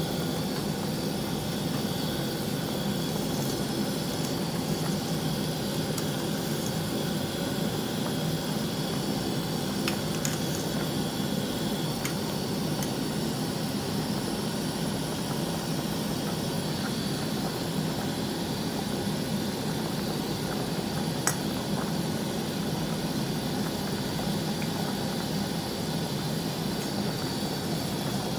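Pot of sinigang broth at a hard rolling boil on a stovetop burner: a steady rushing, bubbling noise, with a couple of small clicks.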